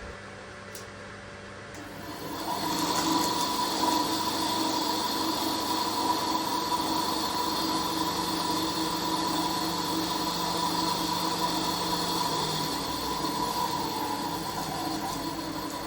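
Einhell 250 W desktop bandsaw motor and blade running freely with no cut, starting up about two seconds in and then holding a steady hum and whine. This is a test run to check that the newly fitted blade tracks in the centre of the wheel.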